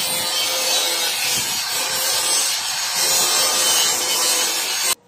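Handheld electric power tool cutting through galvanized steel sheet: a loud, steady cutting noise over a faint motor whine, which stops abruptly near the end.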